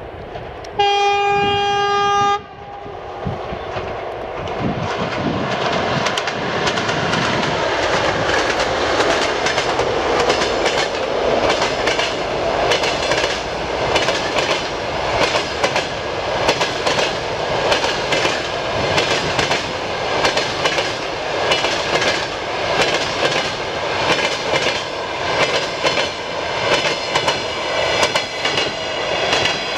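TEP70BS diesel locomotive sounding one horn blast, a steady tone about a second and a half long, then the train growing louder as it draws near. Its passenger coaches then pass, clattering over the rail joints of jointed track in a steady clickety-clack, a group of knocks about every second.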